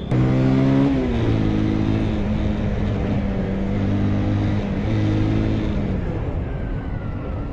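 Bajaj Pulsar 220F's single-cylinder engine pulling hard under acceleration. Its note drops about a second in, holds steady, then fades near the end.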